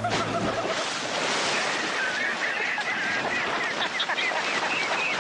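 Heavy water splashing, with many short, high, wavering squeals over it from about a second and a half in.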